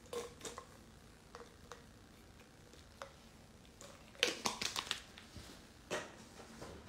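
Scattered clicks and rustling of a phone being handled close to its microphone, with a short cluster of louder clicks about four seconds in and another near six seconds.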